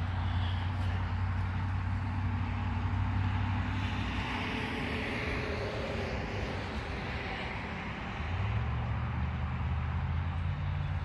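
Road traffic: a steady low vehicle engine hum with a wash of road noise, the hum stepping up in pitch about eight seconds in.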